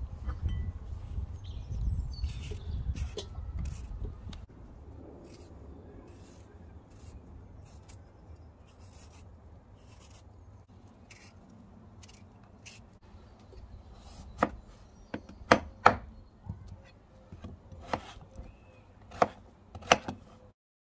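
A knife slicing raw potato on a wooden chopping board, with a run of sharp clacks as the blade hits the board in the last several seconds. The first few seconds hold a low rumble of potatoes being handled on the board.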